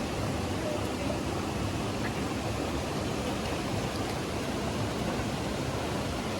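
Steady rushing of mountain stream water or a waterfall, a constant even roar with no breaks.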